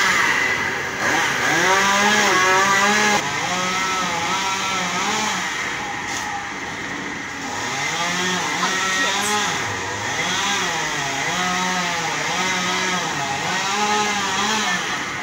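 Chainsaw cutting broken tree limbs, revved up to full speed and let back down again and again.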